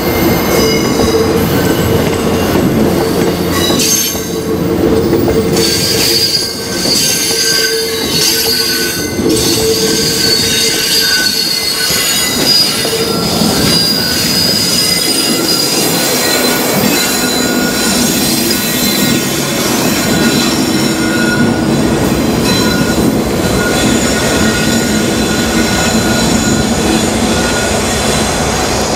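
MBTA commuter rail coaches rolling slowly over a curve, their wheels squealing against the rails in several high whines that come and go, over the rumble and clatter of wheels on the track.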